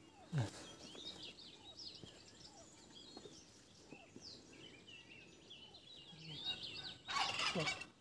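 Faint bird chirping, many quick calls one after another. About seven seconds in comes a short, louder scraping noise as the wooden hive super is pushed into place on the hive body.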